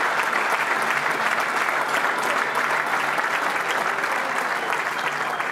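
A crowd applauding: many people clapping their hands in a steady, dense ovation.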